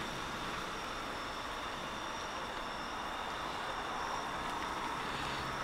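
Steady hiss of light drizzle, with two steady high-pitched tones over it.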